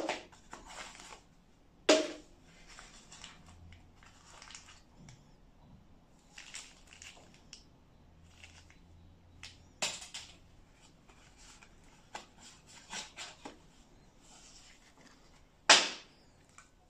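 Unpacking handling noise: paper leaflets and plastic-wrapped phone accessories rustling and crinkling, with a few sharp clacks as the box and its contents are knocked or set down, the loudest right at the start and near the end.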